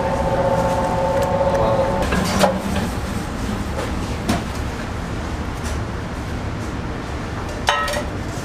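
Commercial spiral dough mixer running, its motor giving a steady low rumble as the hook kneads dough in the stainless steel bowl. A steady high tone stops about two seconds in, and there are a few sharp clanks, with a bright metallic clink near the end.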